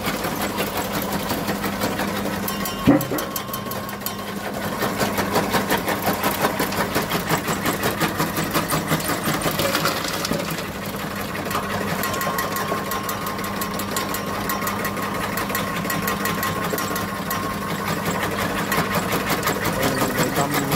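Electric herb chopper with a belt-driven motor running and chopping fed-in cà gai leo (Solanum procumbens) vines, a rapid, even chopping rhythm over a steady motor hum. A single sharp knock about three seconds in is the loudest moment.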